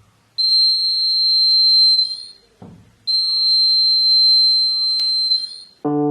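Buzzer of a homemade door alarm sounding two long, steady, high-pitched beeps of about two seconds each, with a short gap between them.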